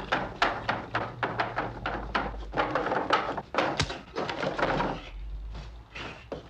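An irregular run of sharp knocks, thuds and clatter, dense for about five seconds and then thinning out.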